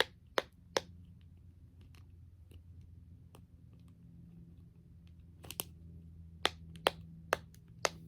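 Silicone pop-it fidget bubbles being pressed so they pop as sharp, separate clicks. There are about three in the first second, a pause with only faint ticks, then a run of about six more near the end.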